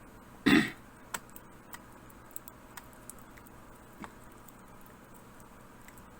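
Small hand-tool clicks and ticks as screws are refitted in a laptop's chassis, a few faint clicks spaced irregularly, with one louder brief handling noise about half a second in.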